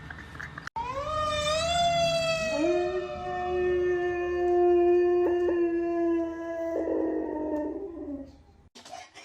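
Dog howling: one long howl that rises in pitch at first, is then held steady for several seconds and dies away near the end.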